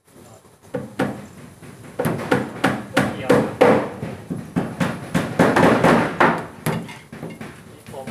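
Hammer blows on a plywood board, a quick uneven series of sharp knocks.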